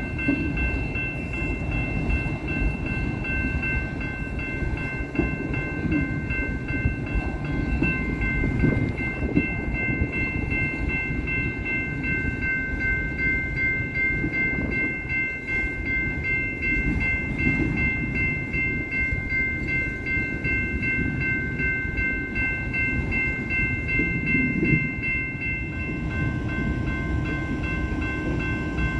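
Freight train of autorack cars rolling past, a continuous rumble of wheels on the rails, with a steady high ringing over it from the grade-crossing warning bell.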